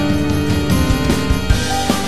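Background music with a steady drum beat under sustained instrumental notes.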